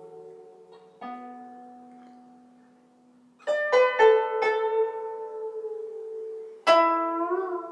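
Guzheng played slowly: single plucked notes ring and fade, a quick run of several notes comes about three and a half seconds in, and a strong note near the end wavers in pitch as the string is pressed behind the bridge for vibrato.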